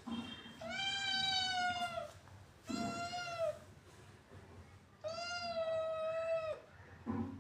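Domestic cat meowing: three long, drawn-out meows with short pauses between, the middle one shorter, each dropping in pitch at the end.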